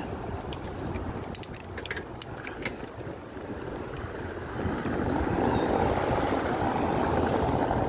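A car driving past close by on a wet cobblestone street. The tyre noise swells from about five seconds in over a low street hum, and a few sharp clicks come in the first three seconds.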